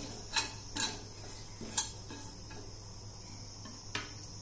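Steel spatula stirring whole spices in hot oil in a non-stick kadai, tapping and scraping against the pan in a few sharp clicks over the first two seconds and once more near the end, over a steady thin high-pitched hiss.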